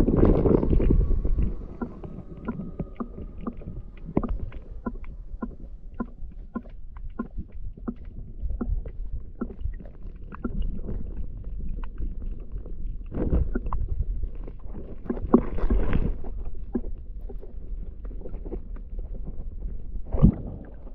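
Stream water heard underwater through a submerged camera: a muffled low rumble scattered with small sharp ticks. It is louder and churning for about the first second and a half, as a hand lets a brown trout go in the water, and swells again twice later.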